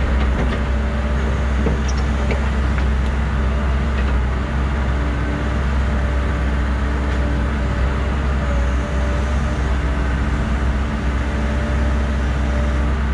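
Caterpillar excavator's diesel engine running steadily under working load, heard from inside the operator's cab as the arm digs and swings, with a strong low hum. A few light clicks and knocks come in the first few seconds.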